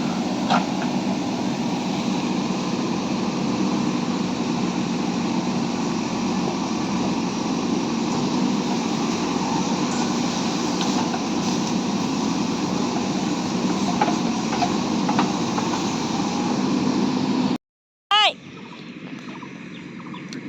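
Steady, fairly loud background noise with a faint low hum. It cuts off abruptly about eighteen seconds in, and a brief high, wavering cry follows.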